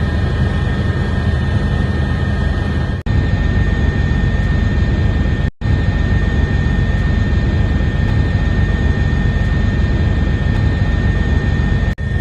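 Steady aircraft engine noise heard from inside the aircraft, a loud low rumble with a constant high whine, cut off for an instant three times where the footage is spliced.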